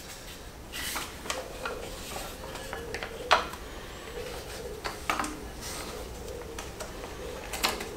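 Scattered light clicks and taps as a six-rib rubber auxiliary drive belt is worked by hand over the pulleys of a BMW M52 engine, with a sharper click about three seconds in and another near the end.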